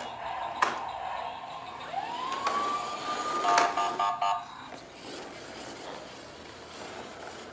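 Electronic siren sounds from battery-powered toy emergency vehicles, set off by pressing their roof buttons. After a click under a second in, a siren tone rises about two seconds in, holds with a fast pulsing beep, and stops about four and a half seconds in.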